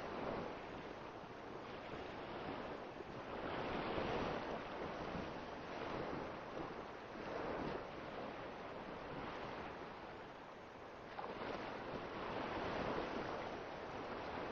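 Soft rushing surf-like noise that swells and ebbs every few seconds, waves washing in and drawing back, with no distinct tones or knocks.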